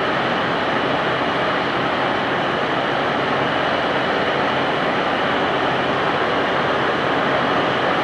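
Ex-JR KiHa 181-series diesel railcar set running its diesel engines with a steady, unbroken drone as it pulls slowly out of the station.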